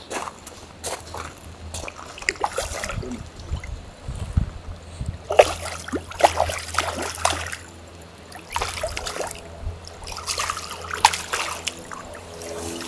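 Hooked trout splashing at the surface of the pond in irregular bursts, and the water sloshing as it is brought into a landing net near the end.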